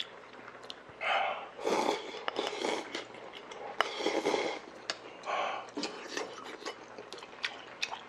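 A person slurping hot broth from a bowl in several short, noisy sips, with small mouth clicks and chewing between them.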